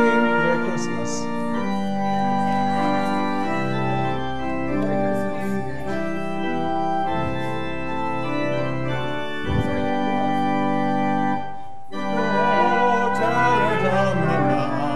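Organ playing held chords that change one after another, an instrumental passage between hymn verses. It breaks off briefly about twelve seconds in, then comes back fuller.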